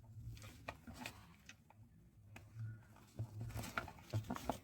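Faint scattered clicks and light rustling of plastic wiring-harness connectors and leads being handled, with a faint low hum underneath.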